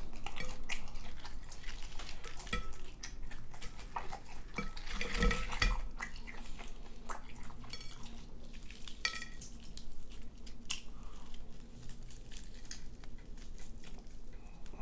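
Close-up eating sounds: a metal fork clinking and scraping in an aluminium foil tray of macaroni and cheese, along with chewing. Near the end comes the crackle of crispy fried chicken being pulled apart by hand.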